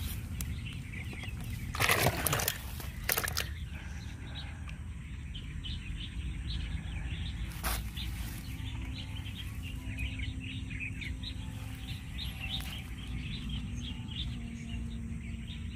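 Small birds chirping repeatedly over a steady low rumble of wind, with a couple of loud thumps about two and three seconds in and a sharp click a little later.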